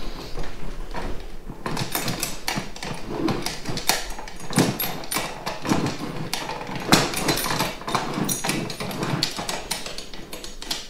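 Projector ceiling-mount extension pole being screwed by hand into its ceiling plate: an irregular run of clicks, knocks and scrapes from the mount parts turning and rattling, picking up about a second and a half in.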